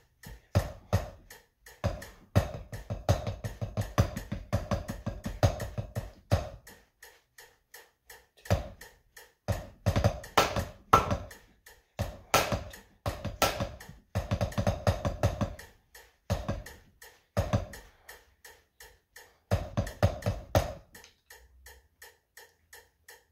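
Wooden drumsticks playing a rudimental drumline exercise on a rubber practice pad, in bursts of fast strokes and rolls, over a steady metronome click. The playing stops about two seconds before the end, leaving only the click.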